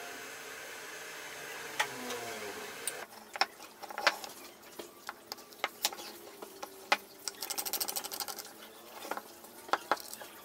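Small wooden jig blocks being handled and set together on a wooden workbench: a series of light knocks and clicks, with a quick run of rapid clicks near the middle. A steady hum in the background stops about three seconds in.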